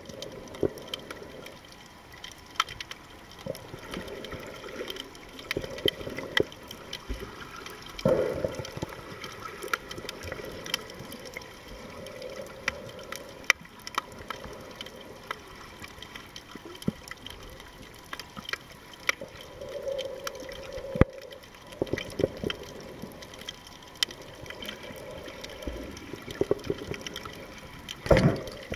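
Water heard from a camera held underwater: muffled sloshing and gurgling with many scattered sharp clicks and pops, swelling louder about eight seconds in and again near the end.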